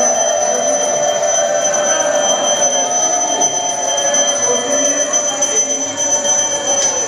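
Temple bells ringing on and on with an unbroken high ring.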